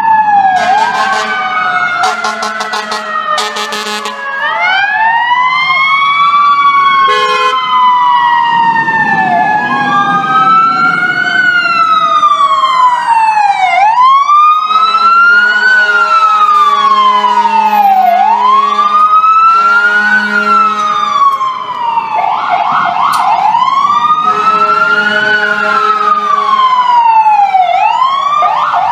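Fire engine responding with its siren on a slow wail, rising and falling about every four to five seconds. A second siren slides steadily down in pitch over the first several seconds, and there are a few quick rising sweeps near the end.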